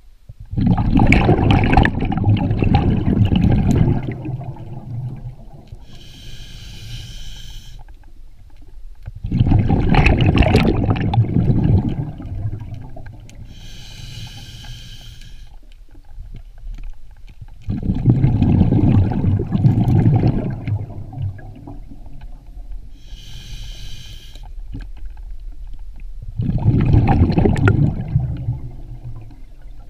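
Diver breathing underwater through a regulator: four long bursts of exhaled bubbles, each followed by a short hissing inhalation through the regulator, about one breath every nine seconds.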